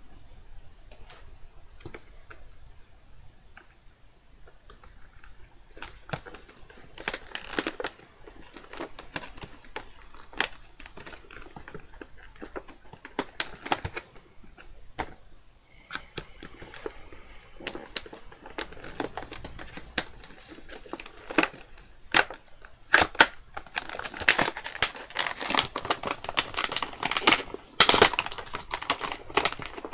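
A doll box being opened by hand: a run of sharp clicks, snaps and rustles of packaging, sparse at first and coming thick and fast over the last several seconds.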